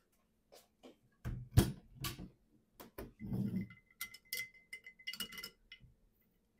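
Tableware knocking a few times, with one sharp thud the loudest, then a drink being stirred with a straw in a glass mason jar, clinking against the glass several times.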